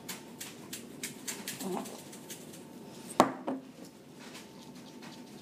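Small dishes and utensils clicking and tapping as they are handled, with one louder sharp knock about three seconds in.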